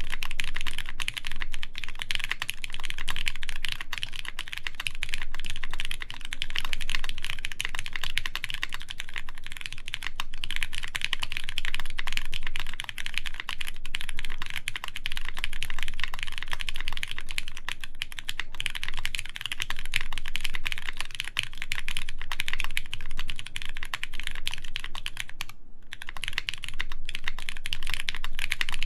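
Steady typing on a Keycult No. 2 Rev. 2 mechanical keyboard with 205g0-lubed Cherry MX Brown tactile switches, GMK keycaps and a full aluminium plate: a dense stream of keystroke clacks, with a brief pause about 25 seconds in.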